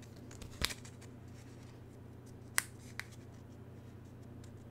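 Quiet desk handling of paper stickers: a few soft rustles and small clicks, with a sharper click about two and a half seconds in, as a sticker is picked at and worked loose from its backing sheet. A low steady hum sits underneath.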